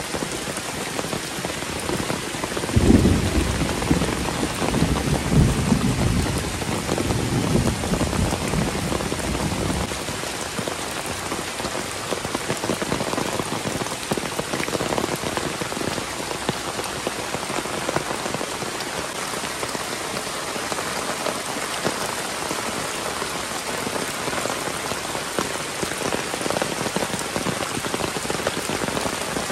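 Heavy rain pouring steadily. About three seconds in, a low rumble of thunder starts suddenly, swells twice and fades away by about ten seconds in.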